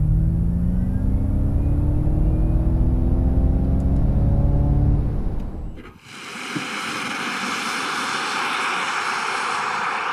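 Ford Mustang Mach-E (dual-motor electric drive) accelerating, heard inside the cabin: a whine from the electric drive rises steadily in pitch over a low road rumble. About six seconds in it cuts suddenly to a steady hiss of tyre and wind noise, with the car heard from outside as it drives away.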